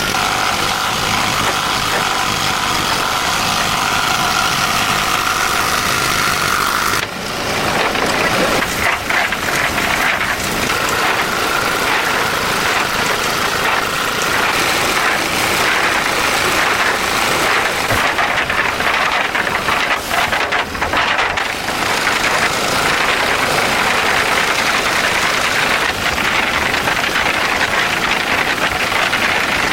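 Restored concrete mixer running steadily under its small engine, with a steady whine over the first several seconds and a brief dip about seven seconds in before it runs on evenly.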